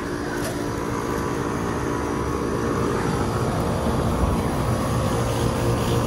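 Outdoor central air-conditioning condensing units running: a steady electrical hum with the even whoosh of the condenser fans, growing slightly louder near the end.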